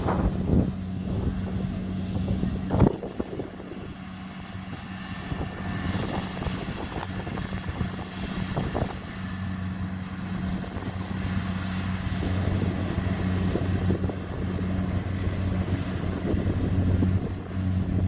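Kubota DC70 Plus combine harvester's diesel engine running steadily while it cuts rice, a low, even hum that grows louder through the second half. Wind buffets the microphone, with a couple of sharp thumps near the start.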